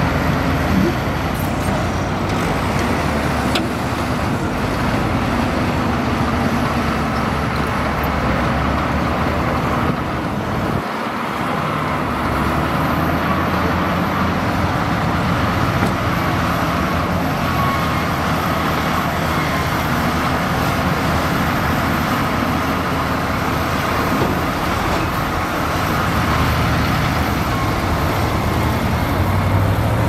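Komatsu crawler bulldozer's diesel engine running steadily under load as the blade pushes dirt, dipping briefly about eleven seconds in.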